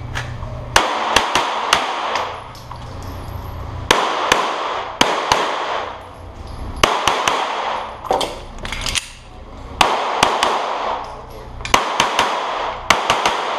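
Pistol shots fired rapidly in pairs and short strings, with gaps of about a second between groups as the shooter moves, each shot echoing in an indoor range.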